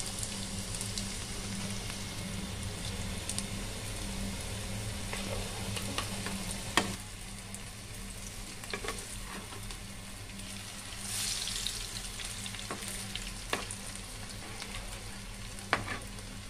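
Minced-meat patties sizzling steadily as they shallow-fry in oil in a non-stick pan over a low flame, with a metal spatula clicking against the pan a few times and a brief louder flare of sizzling about eleven seconds in.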